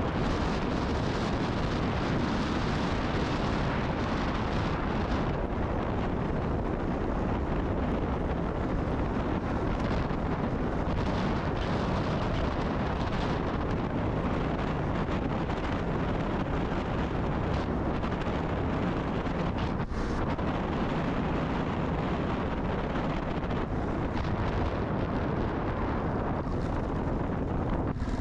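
Steady wind rumble on the microphone of a moving motorcycle, with the Kawasaki KLR650's single-cylinder engine and road noise underneath.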